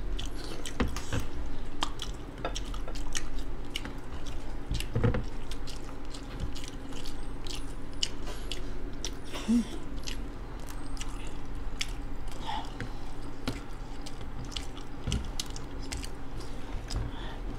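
Close-miked chewing and mouth smacks of two people eating chicken curry and rice by hand, a steady run of small clicks.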